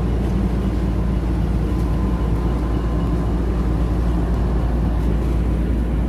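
Ship's diesel main engine running steadily under way at slow ahead, a constant deep drone with a faint steady whine above it.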